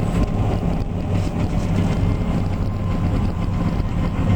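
Harvesting machinery's engine running steadily at a constant speed: an even, low hum with no change in pitch.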